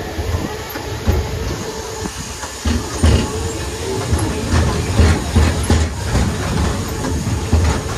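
Boardwalk tram car rolling over the wooden boardwalk planks: a steady low rumble with irregular knocks and rattles from the car as it rides.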